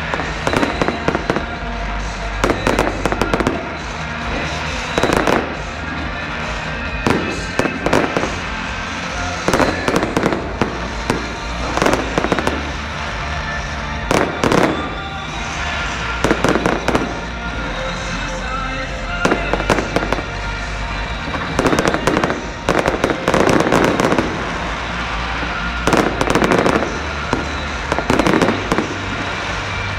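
Fireworks display: aerial shells bursting over and over, a sharp bang every second or two, some coming in quick clusters.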